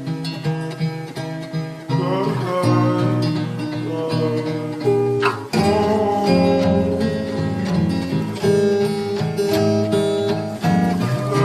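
Slowed-down lo-fi hip-hop song with a plucked acoustic guitar carrying the melody.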